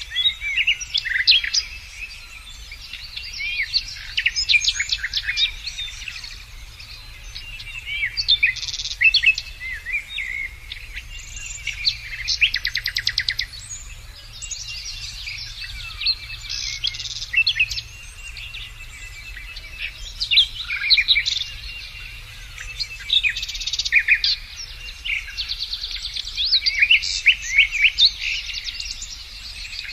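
Songbirds singing, with bursts of varied chirps, whistled glides and rapid trills every few seconds.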